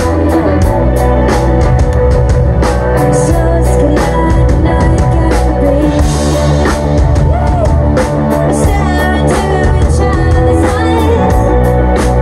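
Live amplified band playing: electric guitars, drum kit and keyboard, with a singer at the microphone. The drums keep a steady beat under sustained guitar notes.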